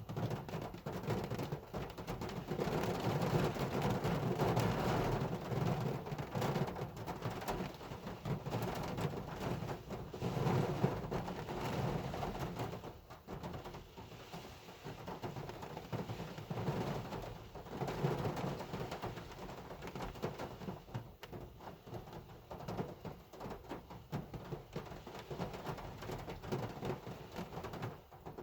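Heavy rain falling on a car, a dense, even patter with a deep low rumble, heavier in the first half and easing off after about twelve seconds.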